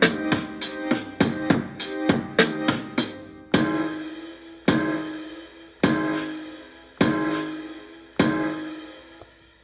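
A beat from Akai MPC Live stock sounds playing back: drum-kit hits with keyboard chords in a busy pattern, then, about three seconds in, single heavy hits roughly every second with long ringing tails, fading out at the end.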